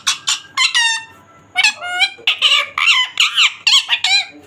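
Indian ringneck parrot calling in quick, shrill squawks, a run of short arching calls several a second, with a brief pause about a second in.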